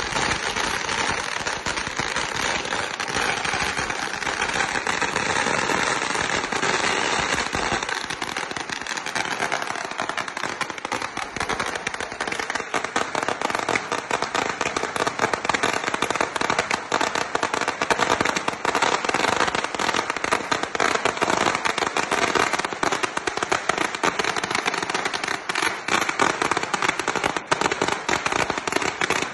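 Fireworks or firecrackers crackling and popping in a dense, unbroken stream of small sharp bangs, growing a little louder in the second half.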